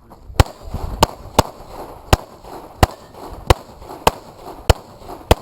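Handgun fired at a steady practical-shooting pace: nine sharp shots, one about every half to three-quarters of a second, with six of them much louder than the rest.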